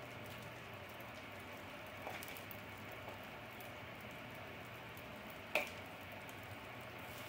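Uttapam batter frying faintly in an oiled nonstick pan, with small scattered crackles, while a steel spoon spreads chopped onion and tomato topping over it. The spoon clinks on the pan lightly about two seconds in and sharply about five and a half seconds in.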